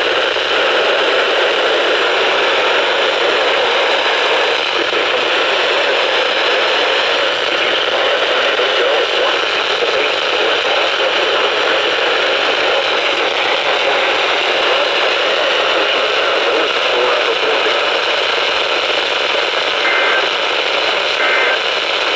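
Steady hiss of radio static from a weather radio receiver, the broadcast voice lost under the noise, with a few brief faint tones near the end.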